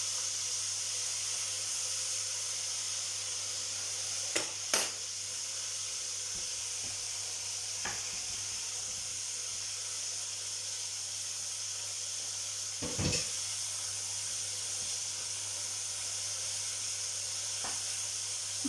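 Food frying in hot fat: a steady sizzle over a low hum, with a few sharp knocks about four and a half seconds in and again about thirteen seconds in.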